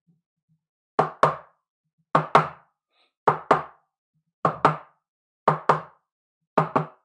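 Sharp double knocks, repeated six times at an even pace of about one pair a second.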